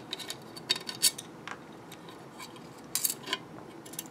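Scattered light clicks and clinks of a small screwdriver working the tiny screws and nuts that hold a small fan to a plastic case. The sharper clicks come about a second in and again around three seconds in.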